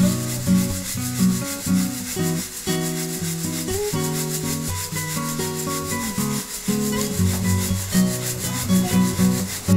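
Kilimanjaro coffee beans rattling and sliding in a hand-held wire-mesh roaster shaken over charcoal, a steady dry rustle. Acoustic guitar music plays throughout.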